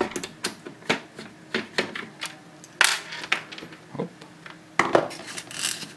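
Screwdriver backing self-tapping screws out of a plastic router housing: a string of clicks and small clatters, the sharpest about three and five seconds in.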